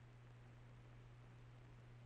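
Near silence: a faint steady hiss with a low, even hum underneath.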